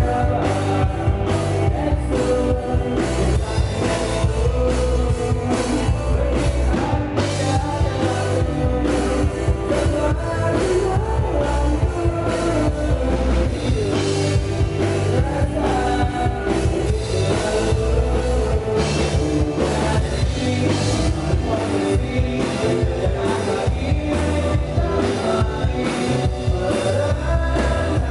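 Rock band playing live, with a drum kit keeping a steady beat under electric guitar and bass.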